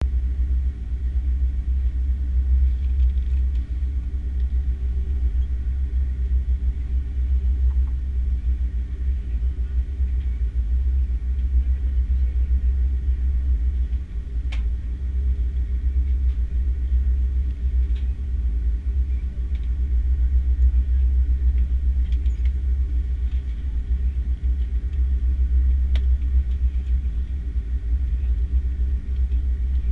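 Steady deep rumble of an Airbus A330-300 airliner, with a few faint clicks about halfway through and near the end.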